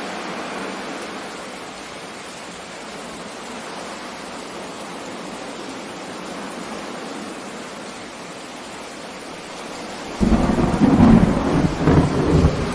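Steady rain over sea noise, then about ten seconds in a sudden loud thunderclap that rolls on as a deep rumble.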